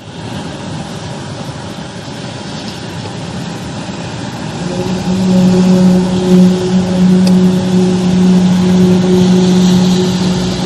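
A played-back recording of a mysterious 'strange sky sound': a steady noisy rumble, then about halfway in a loud, steady, low droning hum with overtones that holds to the end.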